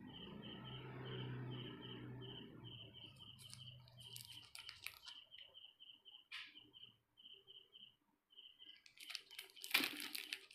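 Cellophane candy wrapper crinkling in the hand in short bursts, loudest just before the end. Behind it, a high chirp repeats evenly in short runs of about three or four a second. A low hum fades out about halfway through.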